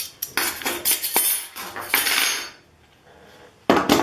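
Metal banding strap and banding tool clinking and rattling as they are handled: a quick run of metallic clicks and a scrape, a short lull, then a sharp metallic clank near the end.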